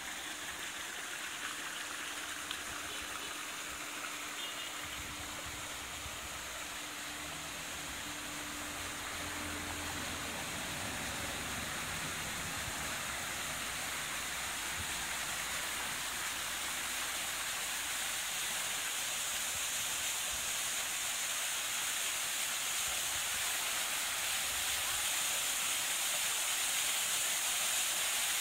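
Small artificial waterfall splashing into a rock pond: a steady rush of falling water, growing gradually louder.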